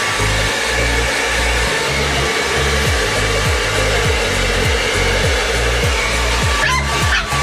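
Hand-held blow dryer running steadily with a loud, even hiss. Low thumps repeat about twice a second underneath it.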